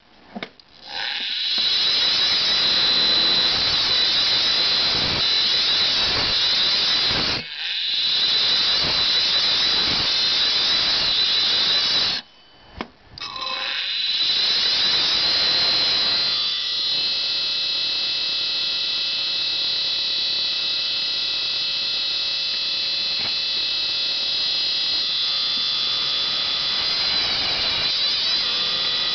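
Opened hard drive with metal scraping on its spinning platters: a loud, harsh metallic screech that cuts out briefly three times in the first half, then settles about sixteen seconds in into a steadier whine made of several pitches.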